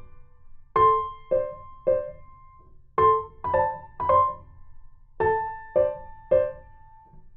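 Background piano music: gentle phrases of three struck notes each, repeating about every two seconds.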